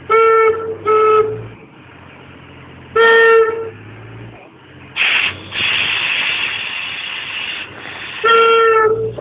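Steam whistle giving short, single-pitched toots: two in quick succession, another about three seconds in, and a longer one near the end. Between them comes a long hiss of escaping steam lasting a couple of seconds.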